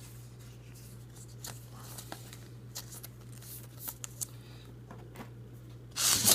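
Trading cards being handled and slid against one another, with faint scattered clicks and rustles over a low steady hum. Near the end a loud crinkling rustle starts, the sound of a card pack's wrapper being handled.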